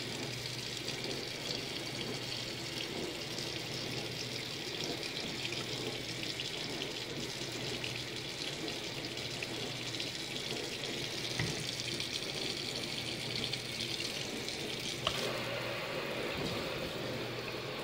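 Kitchen faucet running a steady stream into a stainless steel sink, switched to its spray setting about fifteen seconds in, which changes the sound of the water.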